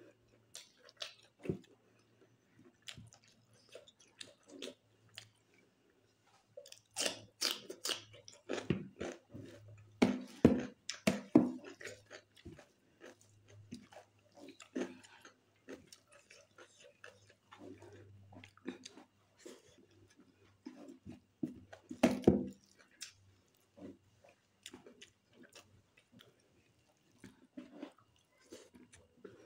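Close-up eating sounds of food eaten by hand: wet chewing and lip smacks mixed with soft squishes and clicks of fingers working rice and curry on a steel plate. The sounds come as scattered short clicks, with louder clusters about a quarter of the way in, around a third of the way in, and about three-quarters of the way through.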